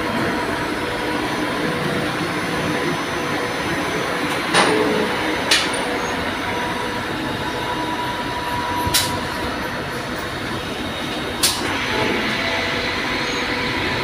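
CNC lathe running, its chuck spinning with coolant spraying as a boring bar cuts the soft chuck jaws: a steady machine noise with a faint steady whine. Four short sharp metallic clicks stand out over it, two close together about a third of the way in and two more later on.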